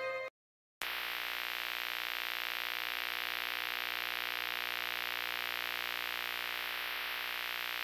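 Steady hiss of TV static noise that starts suddenly after a half-second of silence. Right at the start, the tail of glockenspiel-like music fades out.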